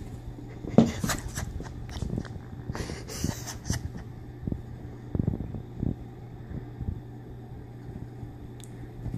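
Two house cats scuffling on carpet: irregular thumps and rustling scuffles, the loudest about a second in, over a steady low hum.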